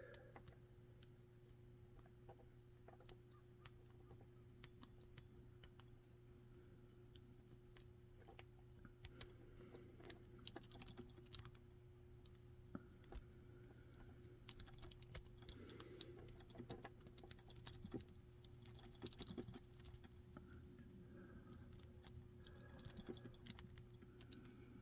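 Faint, irregular clicks and scratches of a makeshift pick, a bent clothespin spring, raking the pins of a monoblock padlock, busier in the second half, over a steady low hum.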